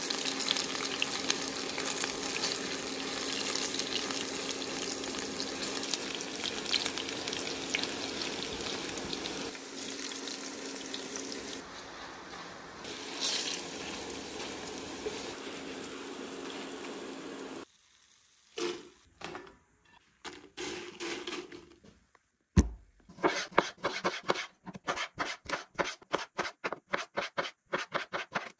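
Diced vegetables sizzling in oil in a nonstick wok, stirred with a spatula; the sizzle cuts off suddenly a little over halfway through. After a thump, a chef's knife chops tomatoes on a wooden cutting board, about three or four chops a second.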